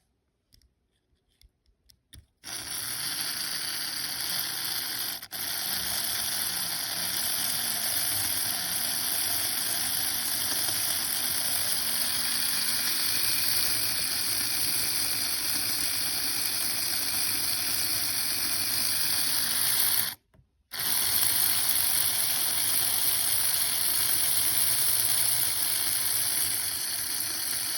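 Small electric motor and gears of an AFX Datsun RC car, whirring steadily with a high hiss. It starts about two seconds in after a few faint clicks, and cuts out briefly near the two-thirds mark before running on.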